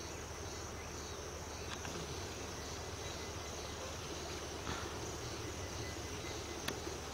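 Steady outdoor background of insects trilling in a continuous high-pitched chorus, with a low steady hum underneath. Two faint clicks come about two-thirds of the way in and near the end.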